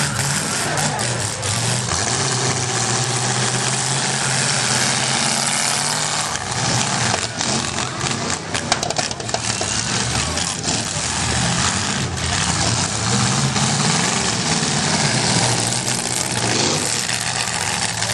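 Demolition derby cars' engines running and revving hard, with a string of sharp crashes of cars colliding through the middle.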